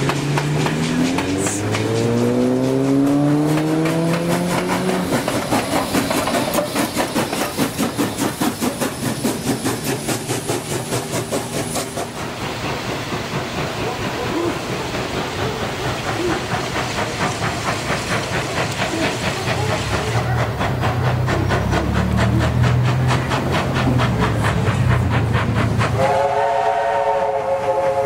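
A steam-hauled passenger train passes close by, its carriage wheels beating rhythmically over the rail joints, until a sudden change about twelve seconds in. Then the approaching steam locomotives 3526 and 3001 can be heard working, their sound building. About two seconds before the end, a multi-note chime steam whistle sounds and holds.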